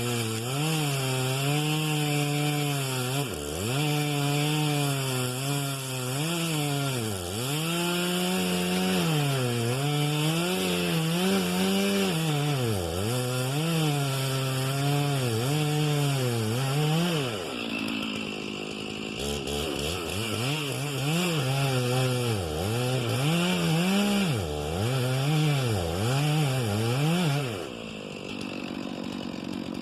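Two-stroke chainsaw cutting through cedar: the engine pitch repeatedly sags under load and picks back up as the chain bites. It eases briefly past the middle, then drops to a lower, steady idle near the end.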